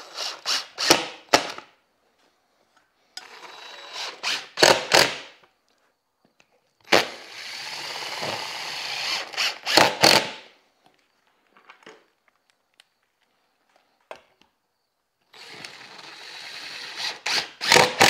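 Cordless DeWalt impact driver driving screws up into an OSB ceiling to fix mounting brackets, in four runs of a few seconds each. Each run ends in a few short, sharp blasts as the screw is snugged down tight.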